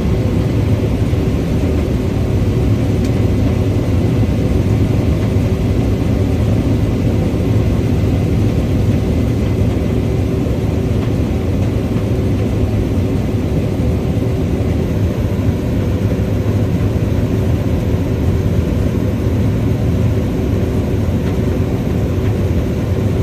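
Heavy farm machine's diesel engine running steadily at constant speed, a loud even drone with a low hum.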